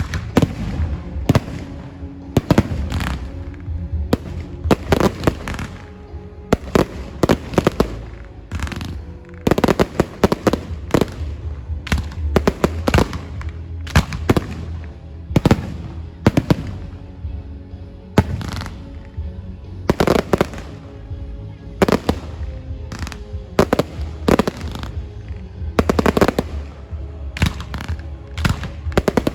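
Fireworks going off in a long, irregular series of sharp bangs, several a second at times, over a low rumble, with music playing underneath.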